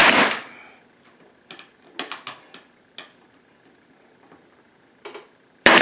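Pneumatic brad nailer driving finishing nails into crown molding: a sharp loud shot that trails off over about half a second, then several light clicks and knocks, and another loud crack near the end.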